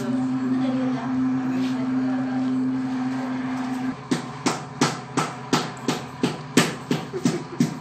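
A steady low hum for about four seconds, then a regular run of sharp knocks, roughly three a second.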